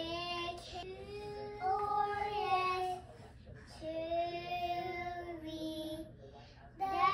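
Young child singing in long held notes, in phrases of about two seconds with short breaks between them.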